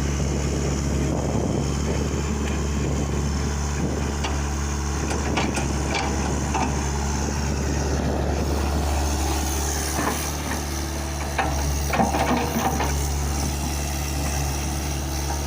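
Excavator diesel engine running steadily, with a few short knocks and clanks about a third of the way in and again in a cluster around two-thirds through.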